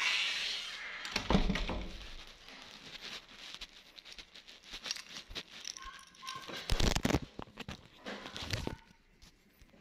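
Rustling and crinkling with scattered clicks and knocks, louder about a second in and again around seven seconds in.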